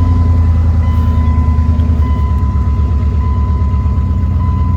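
A vehicle's engine idling steadily just after being started, a strong low, even rumble. A thin, steady high electronic tone with short gaps sounds faintly over it.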